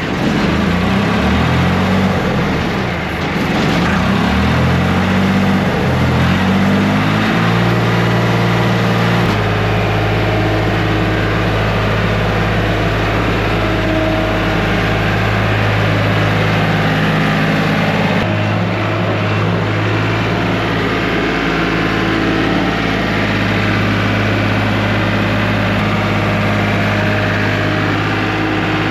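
Old skid steer's engine running just after starting from sitting unused a while, its speed rough and shifting at first, then settling into a steady run about nine seconds in.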